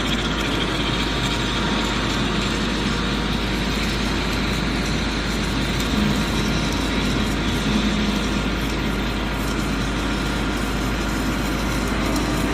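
A machine running steadily, a constant noise with a low hum underneath and no breaks.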